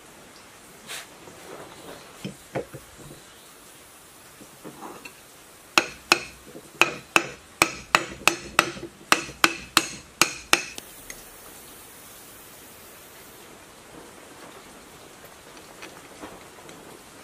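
Claw hammer tapping the metal end cover of a small generator's housing to seat it: about fifteen sharp, ringing metal-on-metal strikes, roughly three a second, starting about six seconds in. Before them come a few light knocks from parts being handled.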